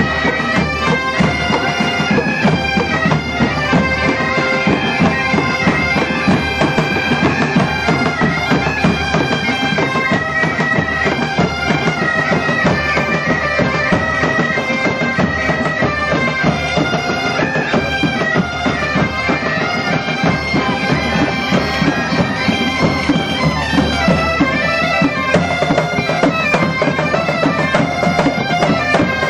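Massed Galician bagpipes (gaitas) playing a tune in unison over their steady drones.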